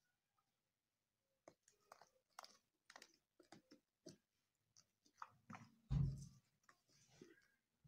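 Domestic turkeys pecking and tearing at a crate of sprouted wheatgrass: soft, irregular clicks and crunches starting about a second and a half in. A louder low thump comes about six seconds in.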